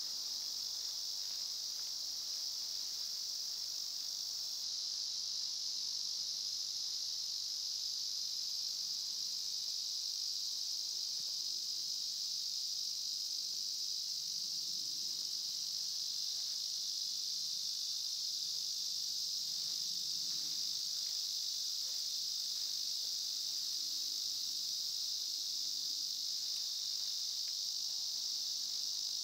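Steady high-pitched drone of insects trilling without a break. Faint soft rustles and light clicks now and then, from a hammock strap being wrapped and handled round a tree trunk.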